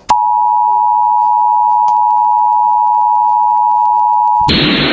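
Emergency Alert System attention signal: two steady tones sounded together, loud and unbroken. It starts with a click and cuts off about four and a half seconds in, when hissy radio audio breaks in.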